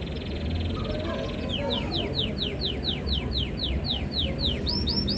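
Canary singing in tours: a fast buzzy trill, then a run of about a dozen downward-sweeping whistled notes at about four a second, and near the end a quicker series of short rising notes. A steady low rumble runs underneath.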